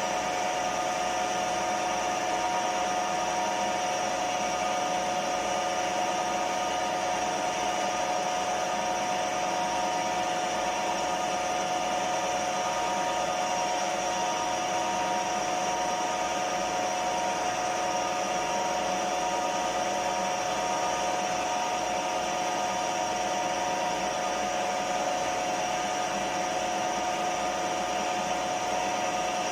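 Milling machine spindle and motor running steadily with an edge finder turning in the spindle, a constant whine made of several steady tones over a hiss.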